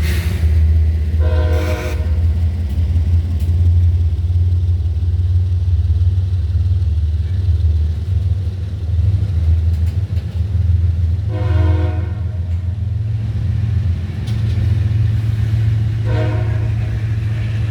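Diesel freight locomotive's air horn sounding three short chord blasts, one about a second in, one past the middle and one near the end, over a steady low rumble of the passing train. The rumble grows a little louder in the last few seconds.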